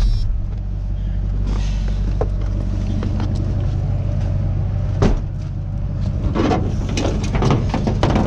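Truck engine running steadily as the truck moves up slowly, with a handful of clicks and knocks in the second half.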